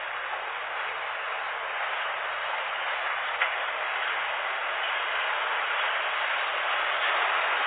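Steady rushing machine noise that slowly grows louder, with a single sharp click about three and a half seconds in.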